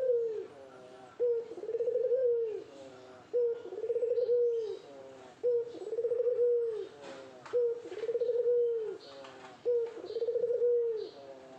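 Male Barbary dove (ringneck dove, 'puter') cooing to a female in courtship. It gives a steady series of arched coos, each about a second long, repeated about every two seconds.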